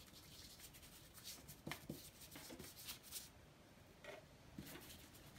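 Faint scratchy swishes of an inch-wide flat paintbrush worked back and forth over paper, with a few soft knocks.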